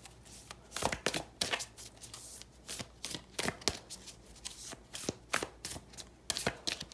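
A deck of animal oracle cards being shuffled by hand: a run of irregular taps and flicks of card stock, several a second.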